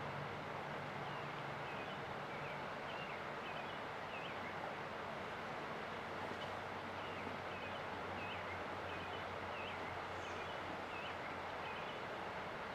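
Steady rush of a river, with a small songbird giving short high chirps in two runs of several notes each, one near the start and one after the middle. A low steady hum lies underneath.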